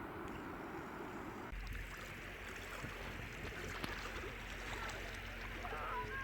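Seashore ambience of wind and water on the tidal flats, a steady rushing noise that shifts to a lower rumble about a second and a half in. A high tonal call starts near the end.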